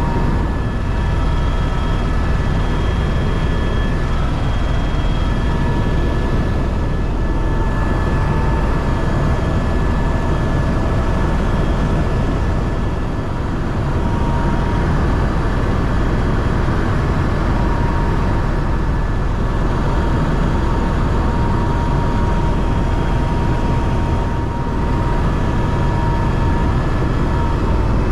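Helicopter in flight: steady, loud rotor and engine noise with a high steady whine over it.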